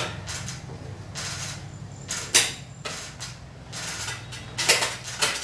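A few sharp clacks of plastic xiangqi pieces knocking on wood, the loudest about two and a half seconds in and two more close together near the end, over a steady low hum.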